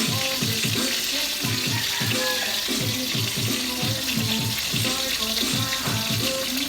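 Food sizzling in a hot pan, a steady hiss throughout, with background music playing.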